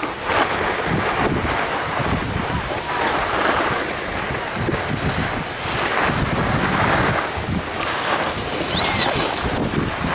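Wind buffeting the microphone together with the swish and scrape of skis sliding on packed snow, swelling every second or two. A short high chirp sounds about nine seconds in.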